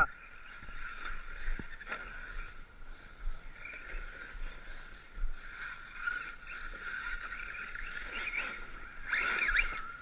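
Brushless electric RC cars running over forest ground: a faint motor whine that rises and falls, getting louder with tyre and chassis noise near the end as a car accelerates.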